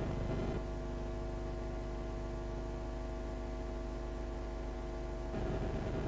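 Steady electrical hum and buzz with no speech. It drops a little in level about half a second in and comes back up near the end.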